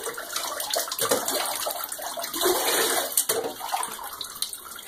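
Water sloshing and splashing in a bathtub as a puppy is washed, with hands scrubbing its wet, soapy fur.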